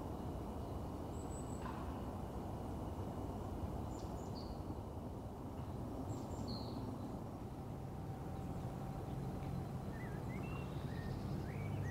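Small birds giving a few short, thin, high calls over a steady low rumble, with a quick run of chirps near the end.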